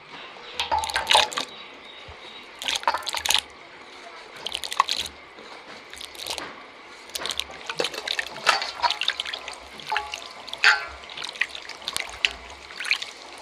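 Diced potatoes dropped by hand into a steel bowl of water, then swished and rubbed around to wash them. The result is irregular splashing and sloshing with small clinks against the bowl.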